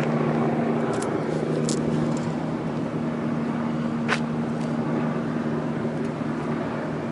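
Helicopter running steadily: a constant low drone with a few short sharp clicks.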